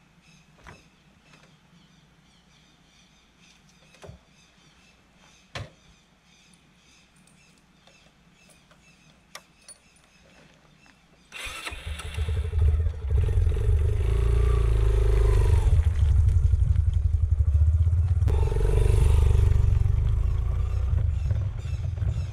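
Faint, evenly repeating high chirping with a few sharp clicks. About eleven seconds in, a loud, low engine sound starts suddenly and keeps running, rising and falling slightly in pitch.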